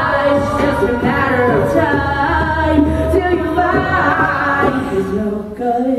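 A cappella group singing: a female lead voice over close vocal harmonies and a low sung bass line, with no instruments.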